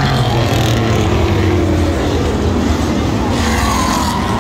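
A pack of racing pickup trucks' engines running hard at full throttle just after the green-flag start, several engine notes falling in pitch as trucks pass by.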